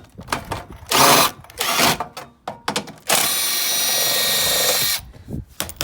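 A power drill-driver spinning out screws from a welding set's sheet-metal casing. There are two short bursts, then one steady run of about two seconds that stops suddenly.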